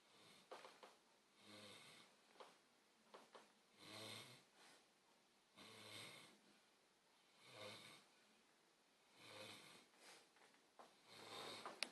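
A sleeping pet snoring softly and rhythmically: about six snoring breaths, roughly one every two seconds, with small clicks between them.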